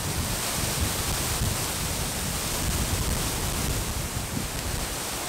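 Wind blowing and buffeting the microphone: a steady hiss with an uneven low rumble.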